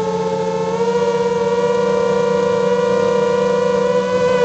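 Quadcopter's electric motors and propellers whining steadily, the pitch stepping up a little about a second in as the throttle rises.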